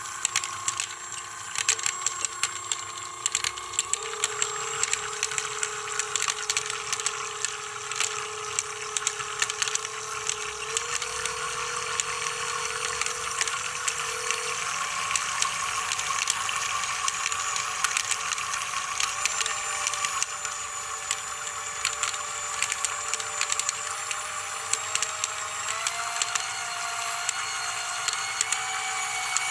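Small electric motor running with a steady whine whose pitch shifts in steps, alongside a rapid, irregular crackle of sharp clicks.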